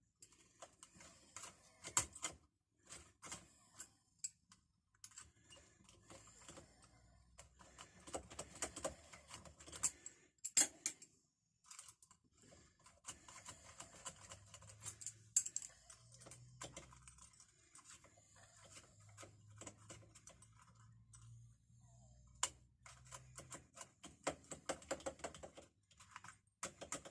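Key being worked back and forth in an old rusty, seized padlock: faint, irregular small metallic clicks and rattles coming in clusters, as the stiff mechanism starts to loosen.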